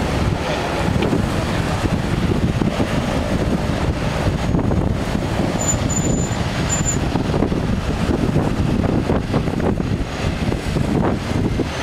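De Havilland Canada DHC-6 Twin Otter's twin PT6A turboprop engines running steadily as it rolls along the runway, heard through heavy wind buffeting on the microphone.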